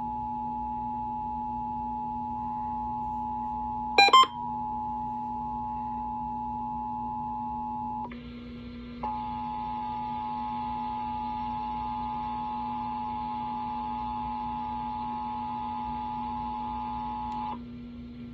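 Emergency Alert System attention signal: the steady two-tone 853 and 960 Hz alert tone that marks the start of a Required Monthly Test. It gives one short loud crackle about four seconds in, drops out for about a second around the middle, resumes and stops shortly before the end, over a steady low hum.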